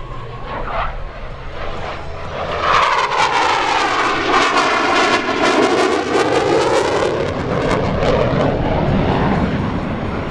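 CF-18 Hornet's twin General Electric F404 jet engines in afterburner during a maximum-performance turn. The roar swells loud about two and a half seconds in, with a swooshing tone that sweeps down and back up as the jet passes, then eases off near the end.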